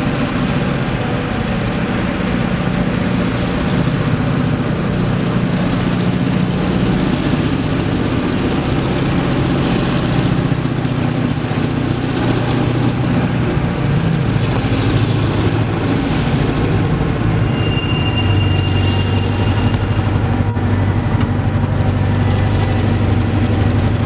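CSX EMD GP38-2 and GP40-2 diesel-electric locomotives working a cut of boxcars close by, their diesel engines running under load with a steady drone. The engine note drops lower about three quarters of the way through. A brief thin, high squeal comes just before that.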